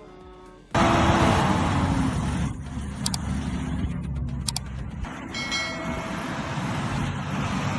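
Heavy truck engine running hard under load, cutting in abruptly under a second in, with a couple of sharp clicks along the way.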